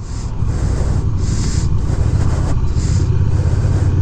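Honda Rebel 1100 DCT motorcycle's parallel-twin engine running steadily under way, a low rumble, with wind noise that swells and fades over it.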